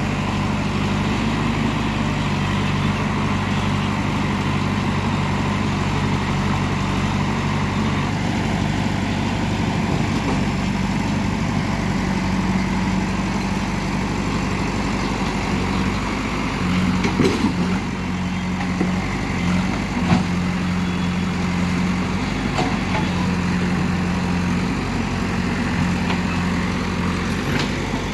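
Diesel engine of heavy earthmoving machinery running steadily, its note shifting a little now and then, with a couple of brief knocks about two-thirds of the way through.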